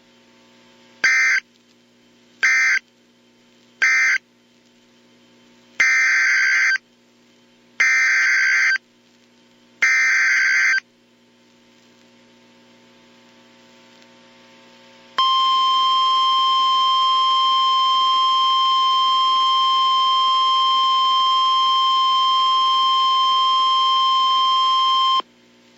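NOAA Weather Radio alert signals. There are three short bursts of raspy SAME digital data, the end-of-message code closing the previous tornado warning. Then come three longer SAME data bursts, the header of the next alert, and after a pause, the steady single-pitch 1050 Hz warning alarm tone, held for about ten seconds before it cuts off.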